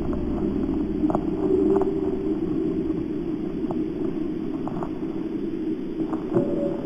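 Low, steady rumbling drone from the soundtrack of a creepy mock emergency alert, with faint scattered clicks and a brief thin tone near the end.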